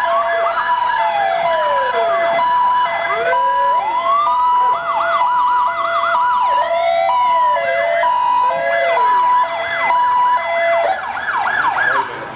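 Several emergency-vehicle sirens sounding at once: slow rising-and-falling wails overlap quick repeated yelps and a steady two-tone hi-lo alternation. These are the sirens of fire trucks and other emergency vehicles in a parade procession.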